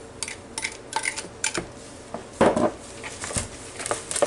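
A utensil stirring sugar into a bowl of mashed banana and melted butter, clicking and tapping against the bowl at an uneven pace, with one louder scrape about halfway through.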